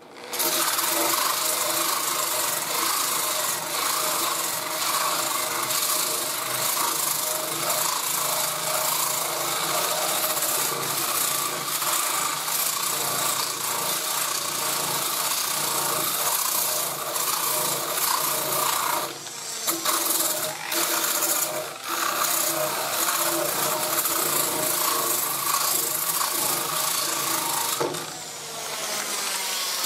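Electric grinder with a 36-grit disc grinding paint off a steel car body panel around a rust hole, down to bare metal: a steady motor whine under the rasp of the disc on the metal. It lets up briefly twice a little past two-thirds through and once more near the end.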